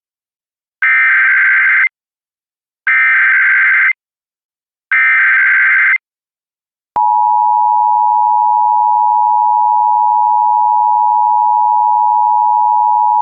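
Emergency Alert System broadcast tones: three buzzing bursts of SAME header data, each about a second long, then about seven seconds in the steady two-tone EAS attention signal starts and holds.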